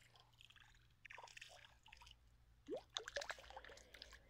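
Faint splashing and dripping of a small hooked perch thrashing at the water's surface as it is drawn in on light spinning tackle, with a few soft clicks.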